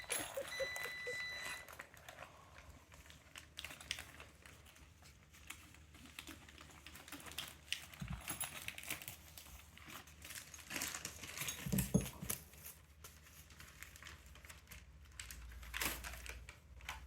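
Packaging being handled and pulled off bike parts: plastic and paper wrapping crinkling and tearing, with scattered clicks and a couple of louder knocks. A brief steady high tone sounds near the start.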